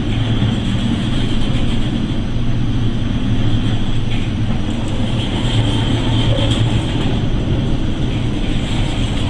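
A ship's engine running, heard aboard as a steady, loud low rumble with a constant low hum.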